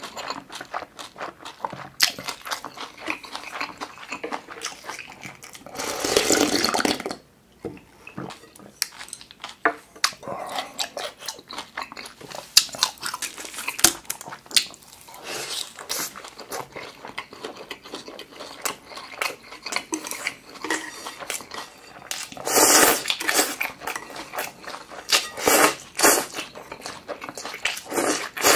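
Close-miked eating sounds: chewing with wet mouth clicks and smacks on egg-battered beef pancake and buckwheat noodles, broken by a few louder sounds about a second long, the first about six seconds in and several more in the last third.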